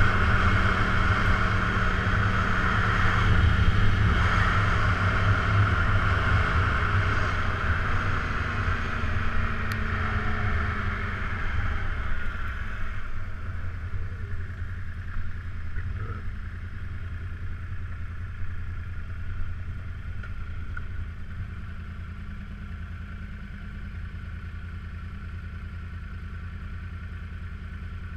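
2014 Yamaha R1's inline-four sport-bike engine running on the move with wind rush, the engine new and in its break-in period. About halfway through, the rush and engine sound ease off and grow quieter, settling to a steady, lower running sound.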